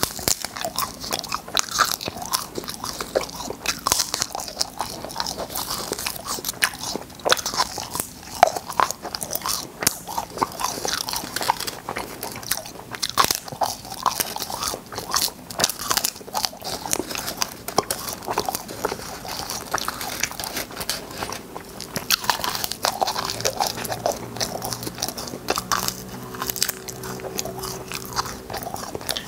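Close-miked biting and chewing of crunchy shell-shaped cola candies: a steady run of sharp cracks and crunches, one bite after another, with chewing in between.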